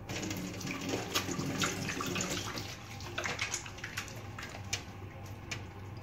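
Kitchen tap turned on and running in a thin stream into a stainless steel sink, with wet splashing as hands rub and lather a bar of soap under it. The water starts suddenly and is busiest over the first few seconds.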